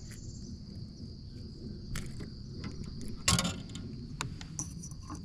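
Insects trilling steadily in one high, unbroken note, over a low steady background rumble. Scattered light clicks and a louder brief rustle about three seconds in come from handling a freshly caught crappie and its hook.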